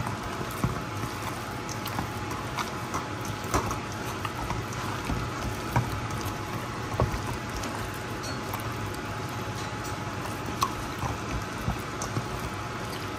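Hand squishing and kneading raw chicken breasts in an oily marinade in a stainless steel bowl: wet squelches with small irregular clicks, over a faint steady hum.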